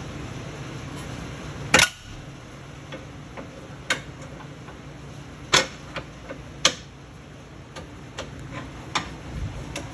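Tools and suspension parts knocking and clicking against each other while a shock absorber and sway bar link are worked into place. The clicks are sharp and irregular, the loudest about two seconds in.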